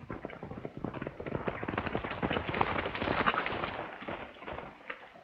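A horse galloping up and pulling to a halt: a rapid run of hoofbeats that grows louder to a peak about three seconds in, then thins out.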